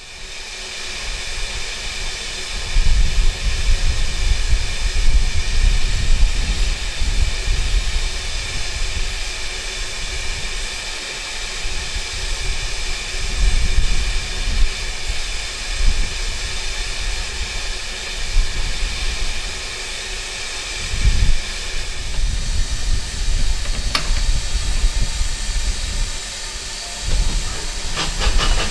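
Steam locomotive hissing steadily, steam escaping under pressure, over an uneven low rumble. A sharp click comes about two-thirds of the way through and a few more near the end.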